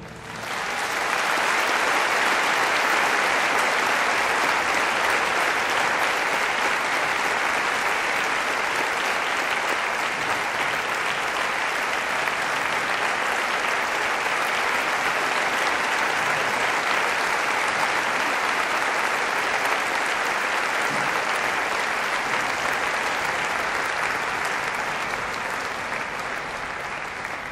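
Large theatre audience applauding steadily, building up within the first second and easing off slightly near the end.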